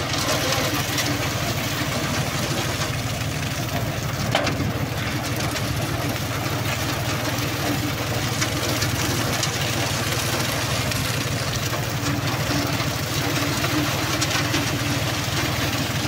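Engine of a tractor-operated transit mixer running steadily with a fast, even beat, turning the mixer drum as concrete is discharged down the chute.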